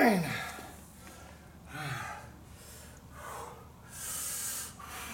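A man breathing hard through deadlift reps: a loud groaning exhale that falls steeply in pitch at the start, then three more forceful breaths spread through the rest of the time.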